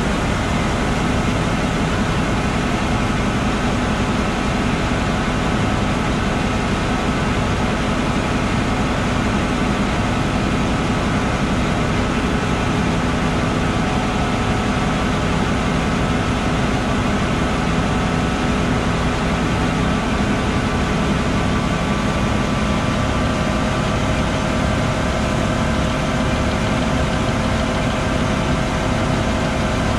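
John Deere 9520RX tracked tractor's diesel engine running steadily, a constant drone with no change in pitch or level.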